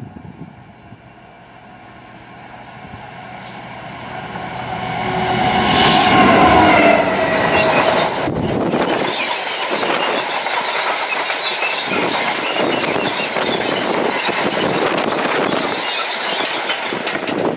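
Class 66 diesel-electric freight locomotive approaching and passing at speed, loudest about six seconds in, its engine note dropping in pitch as it goes by. After it, a long train of loaded flat wagons rolls past with a steady rhythmic clatter of wheels over the rail joints.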